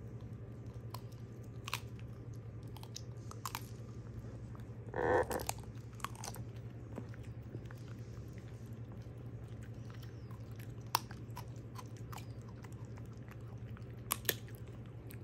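Small dog chewing and crunching a frozen raw chicken foot: scattered sharp crunches and clicks, with one louder, brief sound about five seconds in. A steady low hum runs underneath.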